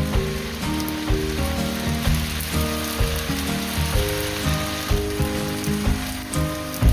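Bean sprouts and stir-fried vegetables sizzling steadily in a hot frying pan. Background music with a simple melody plays over it.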